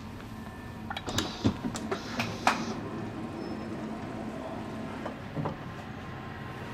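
Power-operated door of an RhB Allegra ABe 8/12 railcar opening: a whirr with a run of clicks and clunks for about a second and a half, loudest near the end of the movement. Two lighter knocks follow a few seconds later.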